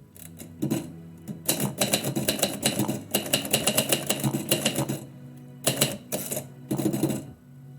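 Typewriter keys being struck: a few single clacks, then a fast, dense run of keystrokes lasting several seconds, followed by two short bursts of typing.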